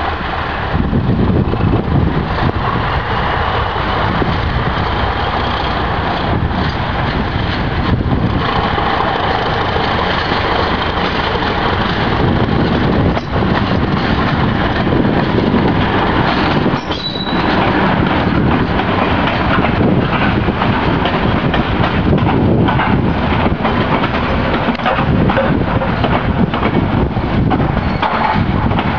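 Class 31 diesel-electric locomotive running under power as it hauls a train of coaches past, its engine rumbling. The coach wheels click over rail joints and pointwork, with a brief high squeal about seventeen seconds in.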